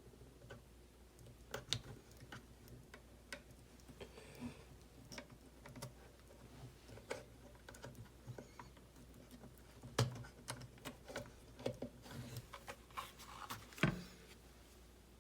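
Irregular small clicks and taps of plastic and metal RC car kit parts being handled and fitted together on a workbench, with a couple of sharper knocks about ten seconds in and near the end.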